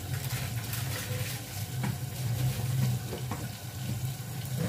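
A pot of meat, lentils and bottle gourd cooking on a gas stove burner: a steady sizzle and bubble with faint crackles, over a low steady hum.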